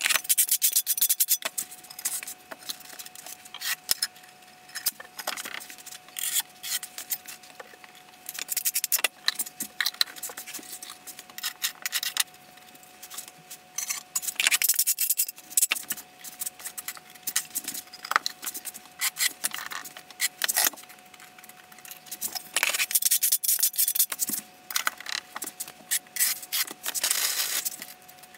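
Tile-setting work: scraping of a trowel over thinset, and plastic T-Lock tile-leveling clips clicking and clattering on porcelain tile. The sounds come in busy, irregular stretches separated by quieter gaps, over a faint steady hum.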